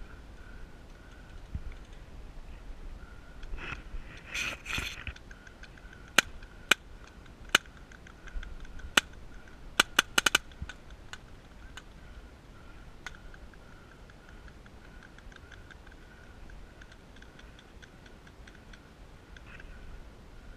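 Paintball marker shots: sharp pops, first four single shots spaced about half a second to a second and a half apart, then a quick string of about five just after that.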